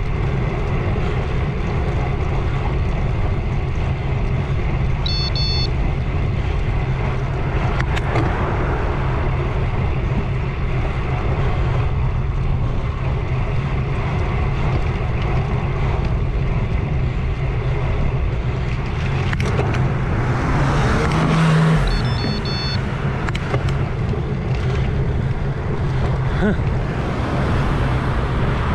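Steady wind and road rumble on a handlebar-mounted action camera while riding a road bicycle, with a car passing about three-quarters of the way through. Two short high beeps, one early and one as the car goes by.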